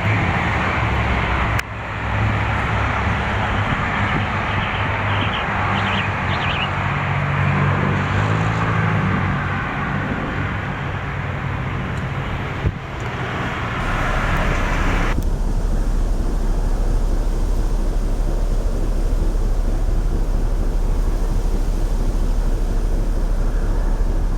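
Aircraft engine noise at an airfield, a loud steady rush with low tones, broken by abrupt cuts about 2 and 13 seconds in; from about 15 seconds in it gives way to a quieter steady low rumble.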